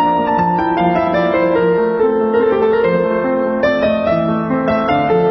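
Background music: a piano or electric keyboard playing a melody.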